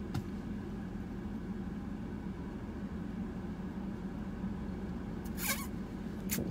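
Steady low hum of a car heard from inside its cabin. Two short noises come near the end.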